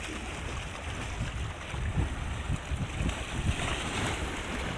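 Sea water washing and lapping around shoreline rocks, with wind gusting on the microphone; a wave washes in a little past the middle.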